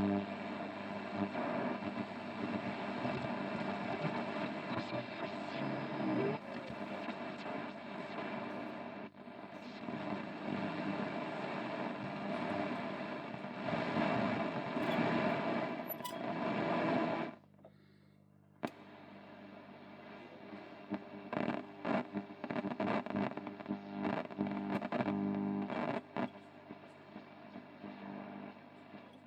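1951 Radionette Menuett valve radio playing through its loudspeaker: distorted, noisy reception with a steady hum and faint music. About two-thirds of the way through the sound cuts out for a second or so, then comes back quieter with scattered crackles.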